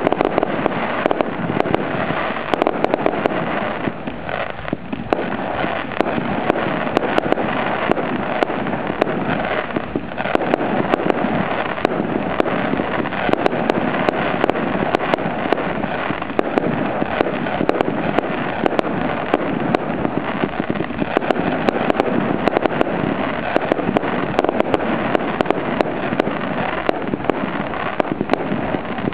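Fireworks display: a dense, unbroken crackle of many sharp pops and small bangs as aerial shells and fountains burst, easing slightly twice in the first ten seconds.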